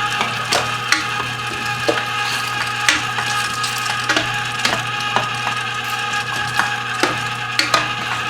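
Cabela's Carnivore 3/4 HP electric meat grinder running steadily, grinding venison through a 7 mm plate: a constant motor hum and whine with irregular clicks and knocks on top.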